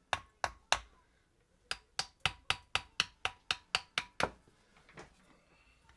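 Sharp taps of a hammer on the MerCruiser carburetor, three at first and then a run of about ten at roughly four a second, to break loose a painted part.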